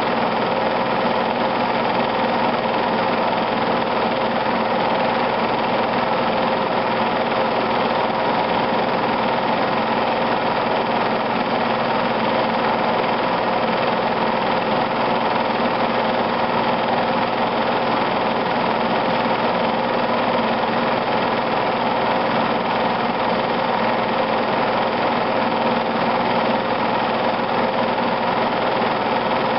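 Film projector running steadily: an even mechanical hum and whir that does not change.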